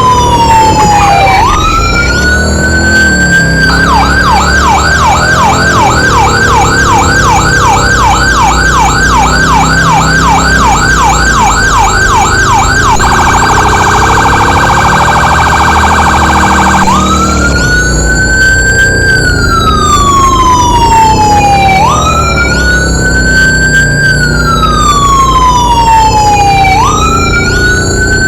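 Fire apparatus electronic siren switching between its tones. It starts on a slow rising and falling wail, changes about four seconds in to a fast yelp of two or three sweeps a second, then to a much faster warble for about four seconds, and returns to the slow wail, all over a low engine rumble.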